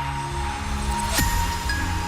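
Soft electronic background music with held notes and high chime-like notes, and a sweep falling in pitch about a second in.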